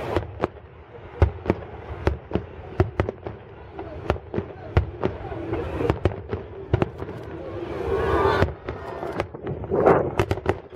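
Aerial fireworks display: shells bursting in a rapid, irregular string of sharp bangs.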